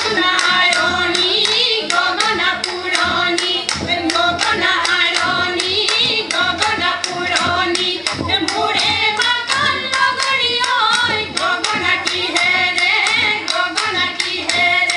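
Women singing a Jeng Bihu folk song through a microphone and PA, kept in time by a steady rhythm of hand claps, about three or four a second.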